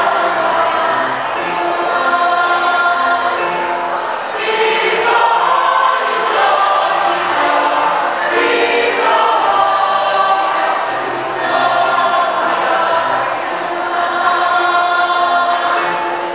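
A choir singing in harmony, with long held chords that change every second or so.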